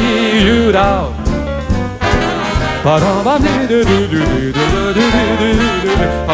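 Swing jazz band playing an instrumental passage: the trumpet, trombone and saxophone horn section carries the melody over piano, bass and drums at a steady swing beat.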